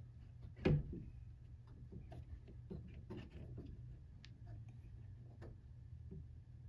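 F-style bar clamp being tightened by its screw handle: one sharp knock about half a second in, then scattered small clicks and ticks of the handle and clamp jaws, over a steady low hum.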